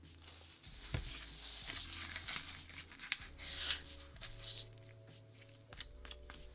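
Crinkling and rustling of disposable plastic gloves and a thin plastic dough scraper as a shaped bread roll is lifted onto the scraper, with sharp clicks and a burst of crackle in the first few seconds.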